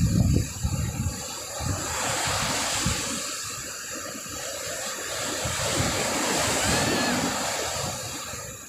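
Steady rushing of wind and surf on a beach, with wind buffeting the microphone in the first second.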